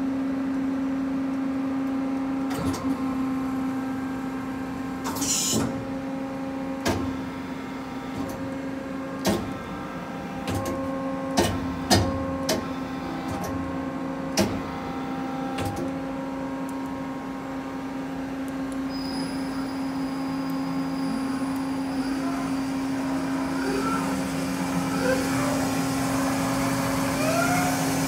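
Mori Seiki SL-35 CNC lathe running under power, with a steady hum and scattered clicks, clunks and a couple of short hisses from the moving turret and tailstock. About two-thirds through, a high whine comes in, then repeated rising whines as the 10-inch hydraulic chuck spins.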